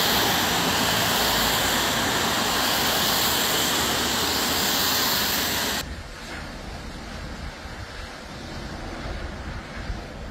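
Loud, steady rushing noise of storm wind and rain on a phone microphone. About six seconds in it cuts off sharply to a quieter, low rumble of wind.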